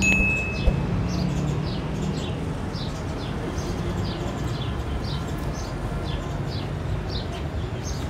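Small birds chirping: a steady series of short, falling chirps, about two a second, over a steady low background rumble.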